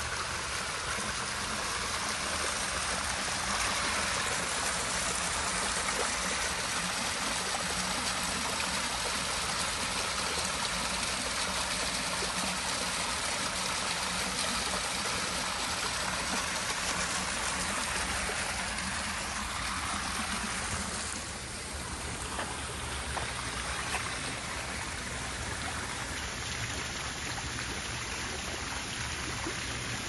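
Steady rushing, trickling water noise, easing off a little about twenty seconds in.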